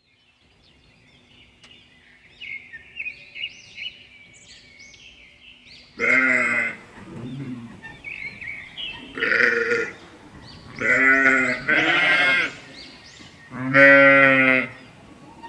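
Sheep bleating: five loud calls starting about six seconds in, the last one the longest and quavering. Small birds chirp faintly before the bleating begins.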